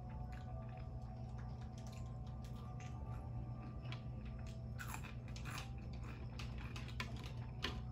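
Close-miked chewing and crunching of crispy curly fries, with sharper crackles crowding in during the second half. A steady low hum runs underneath.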